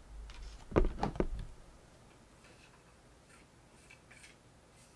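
A quick run of four or five sharp clicks and knocks about a second in, followed by faint scattered ticks of objects being handled.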